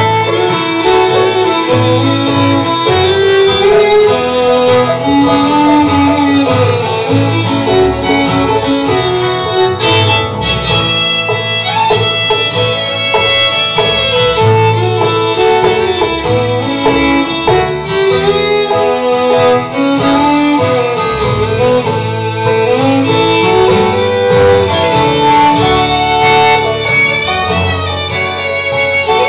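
Live bluegrass band playing a waltz: a fiddle carries a gliding, sustained melody over plucked banjo and guitar backing and upright bass.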